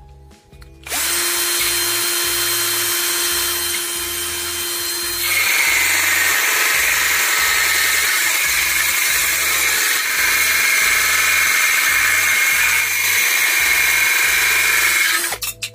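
Cordless drill in high-speed gear spinning a cutting disc on a grinder arbor adapter. It runs freely for about four seconds, then turns louder and harsher as the disc bites into a strip and cuts through it, and stops suddenly near the end.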